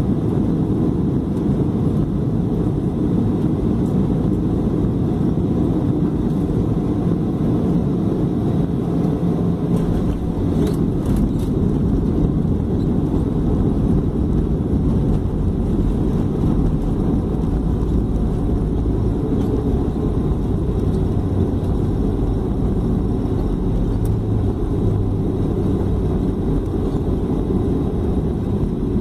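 Cabin noise of a Boeing 737-300 airliner touching down and rolling out: a steady, loud roar of engines and airflow, with a few sharp knocks about ten seconds in as the wheels meet the runway. After that a deeper rumble of the wheels rolling on the runway takes over, with the spoilers raised.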